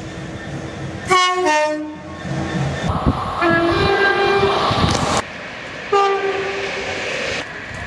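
Two-tone horns of British passenger trains sounding in a run of short edited clips: a high-then-low blast about a second in, a low-then-high blast around three and a half seconds, and another short blast about six seconds in, over the rumble of trains, with abrupt cuts between clips.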